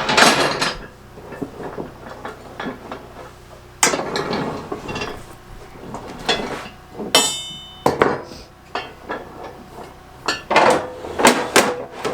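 Steel snow plow blade parts and mounting plates clanking and knocking together as they are handled and fitted, in irregular bursts, with a brief metallic ring about seven seconds in.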